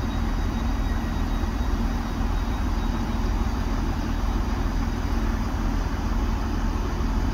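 Diesel train engine idling steadily while the train stands waiting to depart, a constant low drone.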